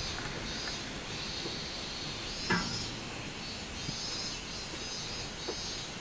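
Robust cicadas (minmin-zemi) singing in the trees: a high, pulsing song of notes repeated about once a second over a steady high drone. A single sharp knock sounds about two and a half seconds in.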